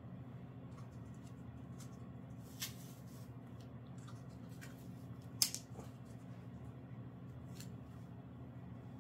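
A few crisp snips and clicks from scissors and bandage material being handled while a dog's leg is wrapped, the loudest about five and a half seconds in, with a smaller one near three seconds. A steady low hum runs underneath.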